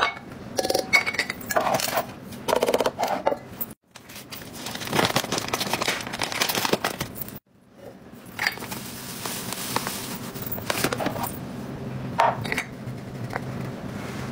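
Small items clinking and clattering as they are dropped and handled inside an enamel metal canister. Sharp knocks and clinks come over steady handling noise, broken twice by a sudden short silence.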